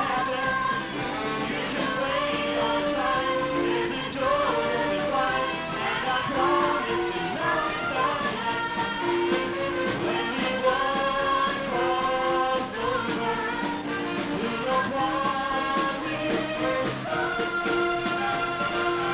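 A song with singing over instrumental backing and a steady beat, accompanying a stage dance number.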